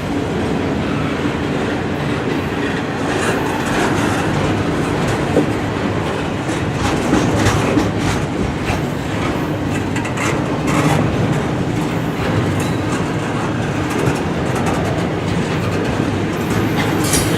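Freight train rolling past: a loud, steady rumble of steel wheels on rail, with irregular clicks and knocks from the wheels and cars.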